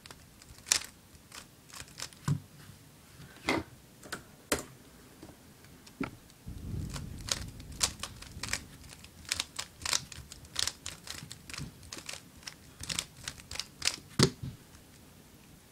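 Guhong v2 3x3 speedcube being turned quickly by hand: irregular runs of sharp plastic clicks as the layers snap round, with a low rustle of handling about six to eight seconds in.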